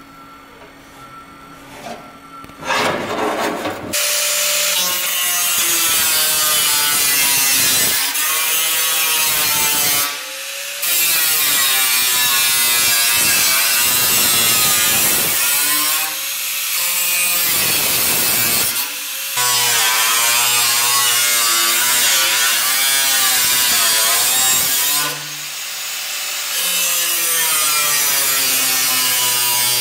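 Angle grinder grinding into the steel of a car's body shell, starting about three seconds in. Its whine wavers up and down in pitch as the disc bites and eases, with a few short let-ups.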